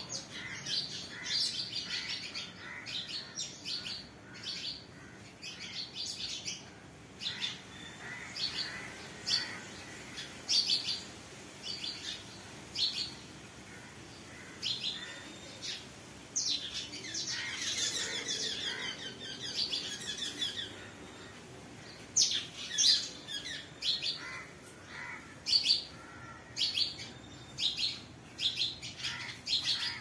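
Songbirds chirping and singing: many short, high chirps in quick phrases, with a longer, denser run of song a little past the middle.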